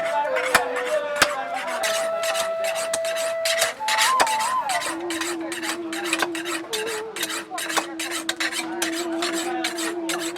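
Rapid strokes of a hand file rasping on the steel of a hand-forged weeder blade, several strokes a second, shaping or sharpening its edge. A couple of sharper metal knocks sound in the first second or so.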